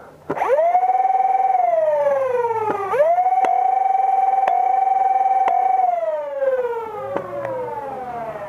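Flywheel motors of the Dualstage Swordfish, a two-stage flywheel Nerf blaster, revving. The whine jumps to a steady high pitch, holds, and slowly winds down. This happens twice, with a few sharp clicks while the wheels spin the second time and a short blip of the motors near the end.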